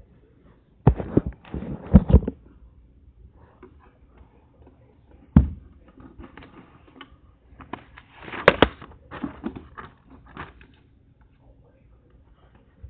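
Handling noise close to the microphone: objects being moved, bumped and set down, giving several sharp knocks and clatters with rustling between them. The loudest knocks come about one, two, five and a half and eight and a half seconds in.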